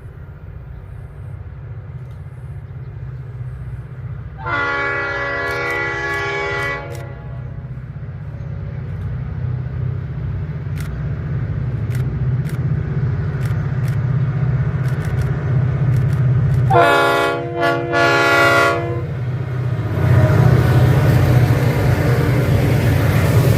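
An SSR diesel locomotive approaching, its engine rumble growing steadily louder, sounding its multi-tone horn: one blast of about two and a half seconds about four seconds in, then a second sounding broken into short blasts around seventeen seconds. From about twenty seconds the train passes close, with loud wheel and rail noise over the engine.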